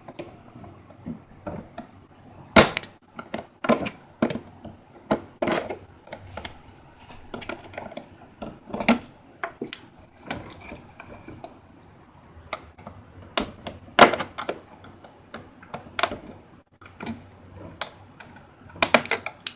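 Scattered plastic clicks and knocks from a hard plastic cordless impact wrench carry case and its packaging being handled and opened. Sharper knocks come about two and a half seconds in, around fourteen seconds in and in a quick cluster near the end.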